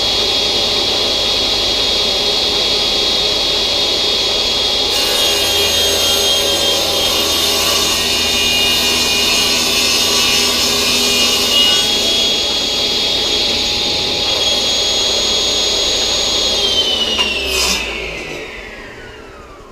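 Table saw running at full speed with a steady high whine, its blade trimming a thin strip off a board pushed through on a crosscut sled for several seconds in the middle. Near the end the saw is switched off and the whine falls as the blade winds down.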